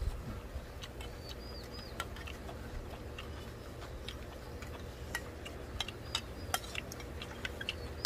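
Eating sounds: spoons and chopsticks clicking against stainless-steel bowls, with scattered small ticks throughout over a steady low rumble.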